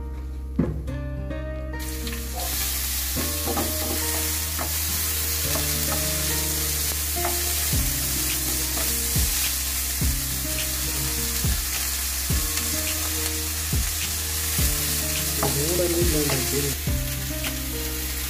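Sliced onions and green chillies sizzling in hot oil in a nonstick frying pan, starting about two seconds in, with a spatula tapping and scraping in the pan as they are stirred.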